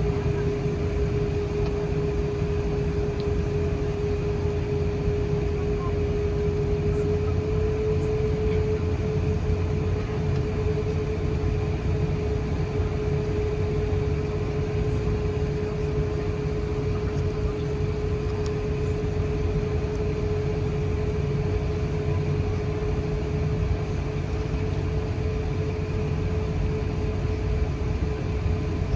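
Airbus A380 cabin noise while taxiing: a steady low rumble from the engines at low power, with a constant hum that rises slightly in pitch about eight seconds in.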